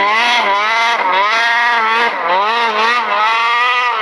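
Snowmobile engine revving, its pitch rising and falling again and again with the throttle, with a short dip about two seconds in.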